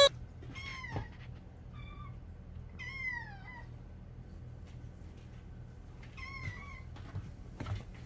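A cat meowing four times over several seconds, most calls sliding down in pitch, the longest about three seconds in.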